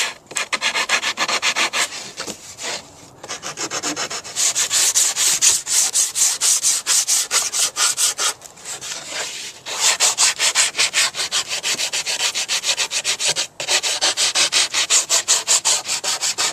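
Sandpaper block rubbing along the edge of a plywood board by hand: quick back-and-forth strokes, several a second, with a couple of short pauses. The cut edges are being smoothed of splinters.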